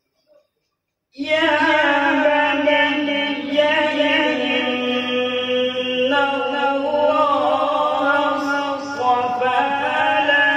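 A man reciting the Quran in the melodic qirat style into a microphone, drawing out long held notes that bend in pitch. The recitation starts about a second in.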